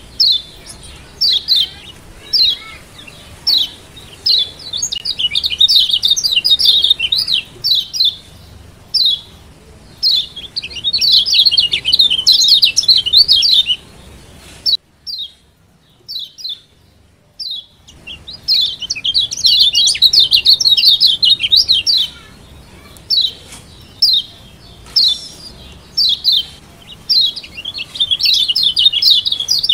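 Lombok yellow white-eye (kecial kuning) giving 'ciak' calls: sharp, high chips, some spaced out singly and others run together into fast chattering bursts a few seconds long, with a pause of about three seconds in the middle. This is the 'ciak joss' call used as a lure to rouse quiet kecial into singing.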